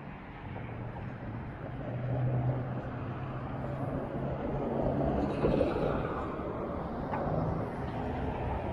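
Street traffic: the steady sound of cars driving along a wide road, with an engine hum rising and fading in the middle.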